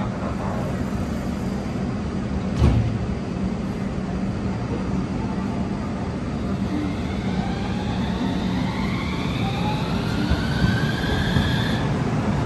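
Utsunomiya Light Rail tram standing at a stop with a steady low hum, a single thump about two and a half seconds in, then from about seven seconds its electric traction motors whine, rising in pitch as it pulls away and accelerates.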